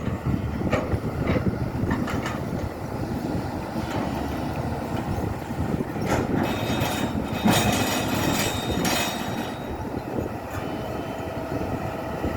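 SANY excavator running under load while digging, a steady heavy engine and hydraulic rumble, with several sharp clanks and scrapes that come mostly in the middle of the stretch.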